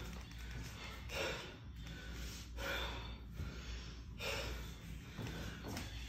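A man breathing hard, winded from burpees with push-ups: a series of heavy breaths in and out, roughly one every second and a half.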